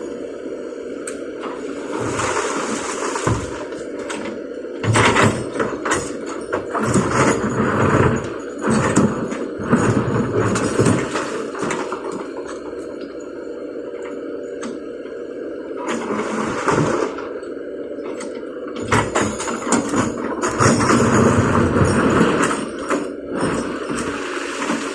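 Kobelco excavator's engine running steadily under hydraulic load, with repeated knocks and clatter of rocks being scooped and dropped into a dump truck's bed, in two busy spells.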